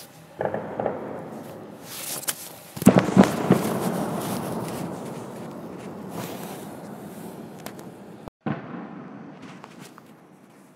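Fireworks shells bursting: a couple of sharp bangs in the first second, a loud cluster of booms about three seconds in, then a long rolling rumble that dies away, with a few faint cracks near the end.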